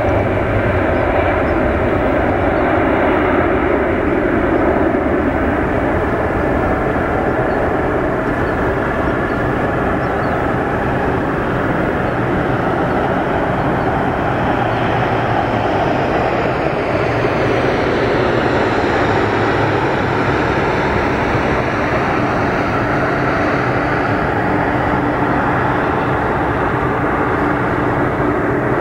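Airbus A220-300's Pratt & Whitney PW1500G geared turbofan engines at takeoff thrust through the takeoff roll and lift-off: a steady, loud jet roar. Near the middle a faint high hiss sweeps in pitch as the jet passes.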